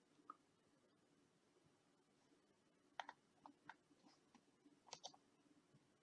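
Faint computer mouse clicks in near silence: one click, then a quick run of several about three seconds in and a couple more near five seconds.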